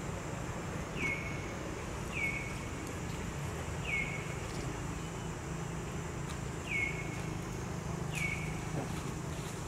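Newborn macaque calling: five short, high squeaks, each dropping sharply in pitch and then holding briefly, spaced irregularly a second or more apart, over a steady low rumble.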